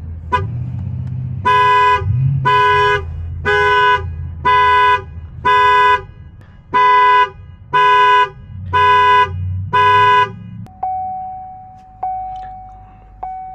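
Chevy Malibu's horn sounding in an even series of about nine loud blasts, roughly one a second: the car's anti-theft alarm going off after the locked car was opened without its key. The horn then stops and a single-tone dashboard chime rings, dinging a few times with each ding fading.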